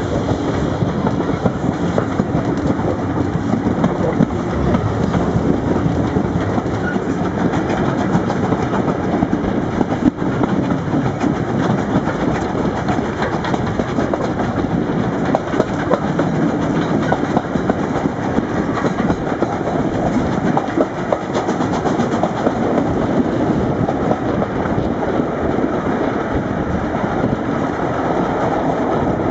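Passenger coaches of a steam-hauled train running at speed, their wheels clattering over the rails, with wind rushing past the open carriage window.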